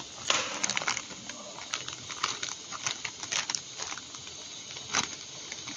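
Soft plastic wet-wipes pack crinkling and crackling in the hand, with irregular sharp clicks from handling its plastic flip-top lid.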